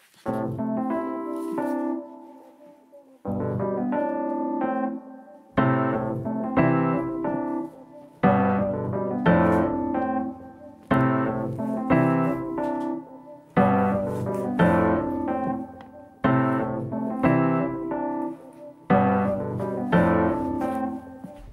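Piano playing slow chords, each struck and left to ring, a new chord every second or two.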